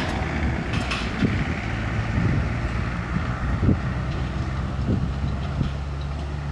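Small engine of a motorized rail track trolley running steadily at a low idle, with scattered short knocks and clatter as the trolley is moved along the rails.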